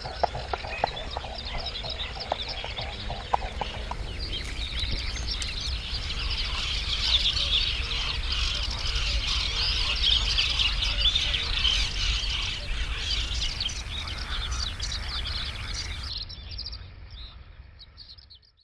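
Mute swans pattering across the water on take-off, feet and wings slapping in a quick rhythm for the first few seconds. A flock of birds then calls in a dense chorus of short, high chirps, which fades out near the end.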